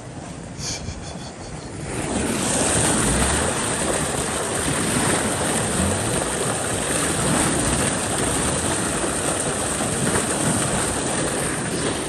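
Lake spillway outflow running high: water gushing out of a corrugated metal culvert pipe and splashing into the creek, a loud steady rush that comes in about two seconds in after a quieter flow of creek water.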